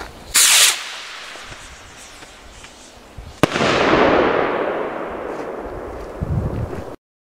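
Eclipse firework rocket: a short launch hiss about half a second in, then about three seconds later a sharp bang as it bursts, followed by a long rolling echo that fades and grows duller. A low thump comes near the end, and then the sound cuts off suddenly.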